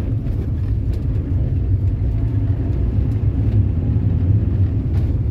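Steady low rumble of engine and road noise heard from inside a motorhome's cab while it is being driven, with a few faint clicks.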